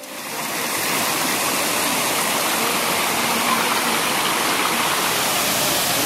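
Steady rush of a waterfall, with water cascading over limestone tiers and pouring across shallow rock. It fades in over about the first second and then holds even.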